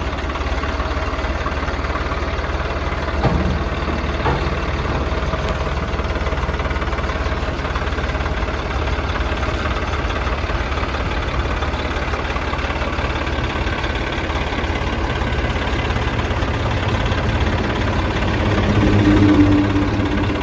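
Swaraj 855 FE tractor's three-cylinder diesel engine running steadily at low revs as the tractor rolls down steel loading ramps, with two sharp clanks about three and four seconds in. Near the end the engine note gets briefly louder and higher.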